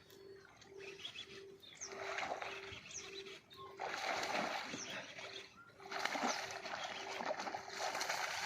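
Water splashing and sloshing in three long bursts, the loudest from about four seconds in. Under it runs a steady low tone pulsing about twice a second, with a few faint bird chirps.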